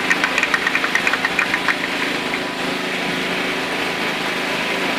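Scattered clapping that dies away about two seconds in, over a steady engine drone.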